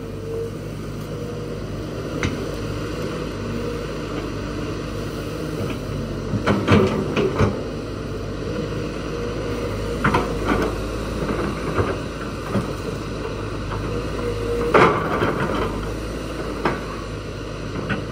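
SANY crawler excavator's diesel engine running steadily under load, with a steady hydraulic pump whine, while the bucket digs out stumps and roots. The bucket knocks and scrapes through soil and roots a few times: once a couple of seconds in, a cluster around the middle, and again near the end.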